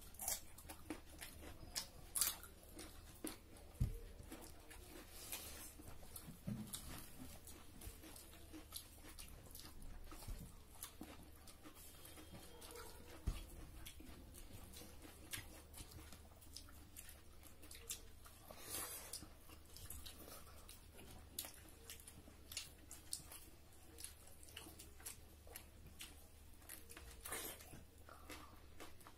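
Close, faint mouth sounds of people eating by hand: chewing, lip smacks and scattered crunchy bites.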